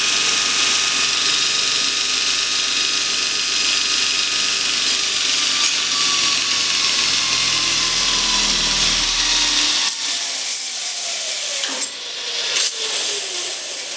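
Multitool belt grinder attachment running unloaded at speed, a steady high whine from the motor and belt. About ten seconds in the power cuts, and the pitch falls as the belt coasts down.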